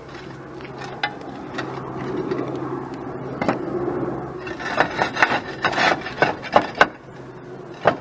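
Scraping and rubbing of roofing material being worked into place, followed by a quick run of sharp knocks and taps about halfway through.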